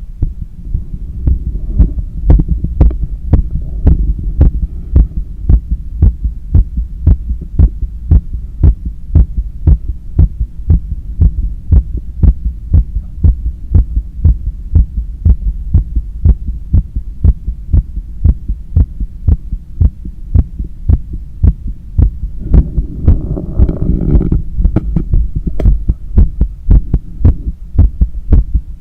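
Heartbeat heard through a stethoscope on the chest of an athlete cooling down after a long run: sharp, evenly spaced beats over a continuous low rumble. A brief rushing noise comes in a little after twenty seconds.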